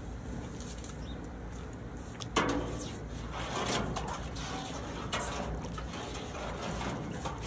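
Brown liquid fertilizer stirred with a long stick in a plastic wheelbarrow tub: water sloshing and splashing. It starts suddenly a little over two seconds in and goes on irregularly after that.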